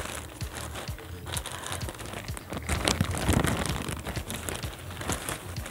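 Grey plastic shipping mailer being crinkled and pulled open by hand: a dense crackling of plastic made of many small sharp crackles.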